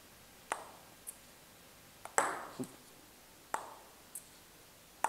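Table tennis bat brushing the ball with heavy spin, a short sharp 'chick' about every second and a half, four times, the second the loudest. Each stroke is followed about half a second later by a fainter, higher click. A crisp 'chick' like this, rather than a woody clonk, is the sign of plenty of spin on the ball.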